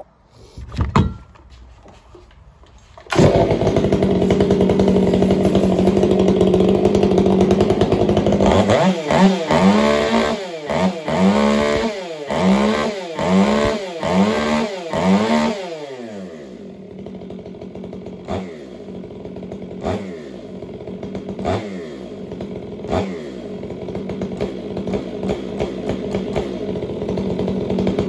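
Stihl MS 500i fuel-injected two-stroke chainsaw pull-started, catching about three seconds in and running loud and steady, then revved in about seven quick blips, then settling to a steady idle. The idle drops properly now that the throttle butterfly has been re-centred, its screw tightened and its ends lubricated.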